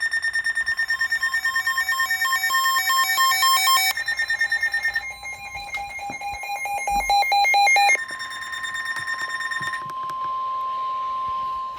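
NOAA Weather Radio emergency alert signals from several stations overlapping: rapid electronic beeping and chirping data tones, then a steady warning alarm tone near 1 kHz from about eight seconds in. It marks the start of a severe thunderstorm warning broadcast.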